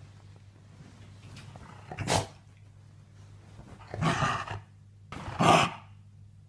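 Shiba Inu dog vocalizing in three outbursts: a short one about two seconds in, then two longer ones, the last the loudest.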